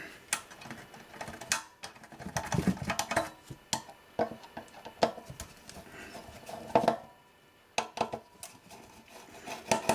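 Irregular clicks and clinks of a screwdriver and small metal parts being handled as a screwed-down module is worked loose from an avionics receiver's chassis, with a short lull about seven seconds in.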